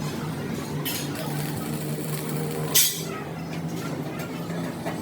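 Steady low machine hum, with a short sharp hiss about three seconds in and a fainter one near the start.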